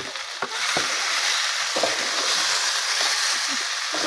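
Chicken pieces in masala sizzling in a hot pan, stirred with a metal spatula that knocks and scrapes against the pan a few times. The sizzle swells about half a second in and then holds steady.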